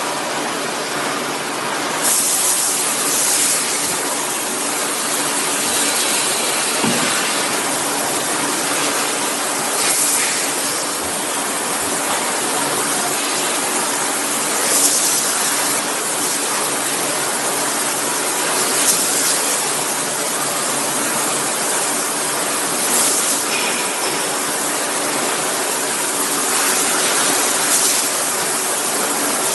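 Packaging-line machinery running: a steady hiss and hum, with short sharp hisses every few seconds.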